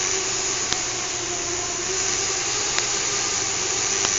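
Small fischertechnik electric motor spinning a propeller on a monorail carriage, running with a steady whirring hum and a whoosh of air, with three faint ticks.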